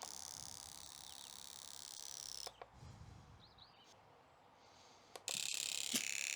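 Fuel injector being pulsed on a bench tester while spraying carb cleaner: a fast-pulsing hiss for about two and a half seconds, a pause, then a louder pulsing hiss with a few clicks starting about five seconds in.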